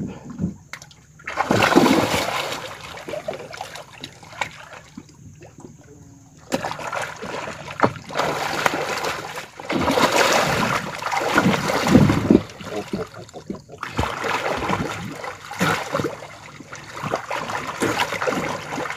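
Water splashing and sloshing in irregular bursts, with a few quieter pauses between them.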